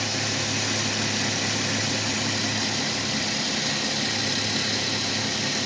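2019 Mazda 3's engine idling steadily with a newly fitted alternator and drive belt turning, run to check that the alternator is charging.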